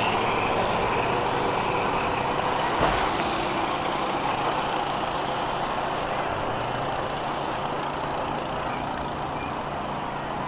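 School bus engines running steadily, with a single knock about three seconds in.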